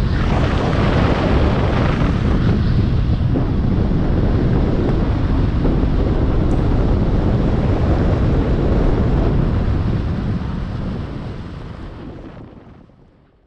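Wind buffeting the microphone of a camera on a moving car, over road and tyre noise. It fades out over the last three seconds or so.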